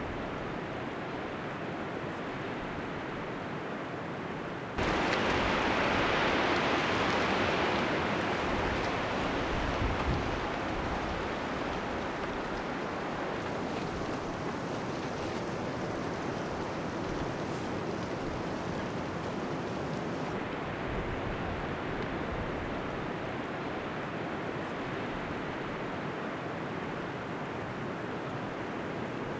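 Blizzard wind blowing as a steady rushing noise. It turns suddenly louder about five seconds in, then eases back down.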